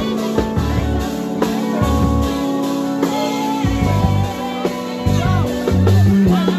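Live band playing with a woman singing lead into a microphone, over electric guitar, keyboard and a bass line.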